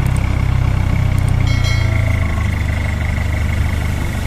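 An engine running steadily at idle, a deep even rumble with a faint high whine over it, and a brief higher tone about a second and a half in.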